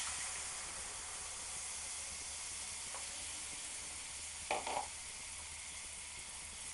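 Chopped tomatoes sizzling steadily in a hot frying pan of flour and oil, just tipped in, the sizzle easing slowly. A brief sound stands out about four and a half seconds in.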